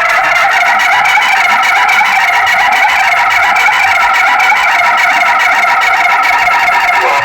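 Loud multi-tone vehicle pressure horn held on continuously, several steady pitches sounding together with a slight warble.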